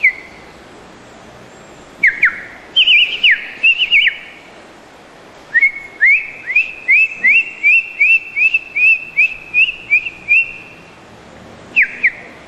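A person whistling an imitation of a bird's song. First come a few quick swooping notes, then a run of about a dozen short rising whistles at roughly two a second, and near the end two falling notes.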